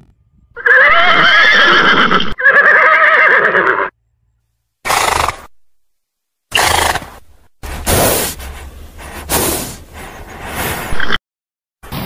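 Horse neighing: two long, wavering whinnies in the first four seconds, followed by several shorter noisy sounds cut together with gaps of silence between them.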